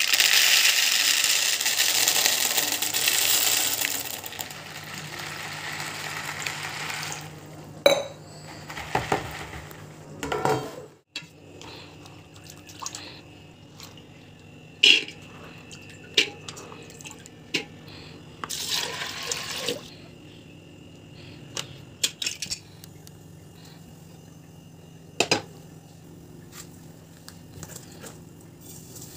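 Kitchen prep sounds: dried kidney beans poured into a plastic bowl for the first few seconds, then water sloshing as soaked beans are handled, with scattered knocks of pots and utensils. A low steady hum runs underneath.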